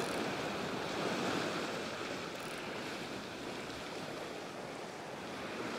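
Ocean surf surging and washing over a rock shelf: a steady rush of white water.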